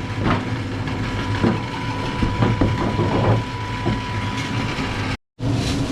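Busy market-stall background: a steady low hum with scattered clatter and faint voices. The sound cuts out for a split second near the end.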